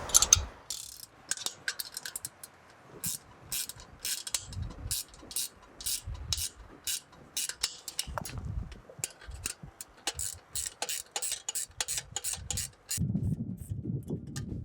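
Ratchet wrench clicking in a long run of quick strokes, about two to three clicks a second, as the nuts holding the precision mounts to the pipe-strap keepers are tightened down on their washers. Near the end the clicking stops and low handling noise takes over.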